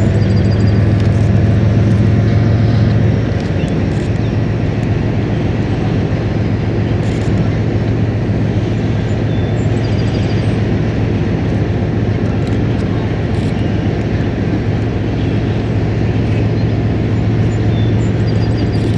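Diesel locomotive engines running steadily as a train goes by, a loud low drone with a faint rumble of wheels on top; the drone drops a little about three seconds in.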